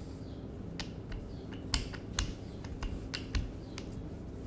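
Wooden rolling pin rolling out dough on a steel worktable: a series of irregular sharp clicks and knocks as the pin and its handles strike and shift on the table, over a steady low hum.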